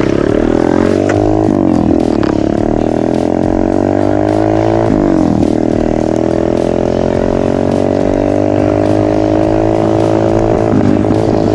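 Motocross bike engine pulling under acceleration, its pitch climbing and then dropping sharply three times as it shifts up through the gears.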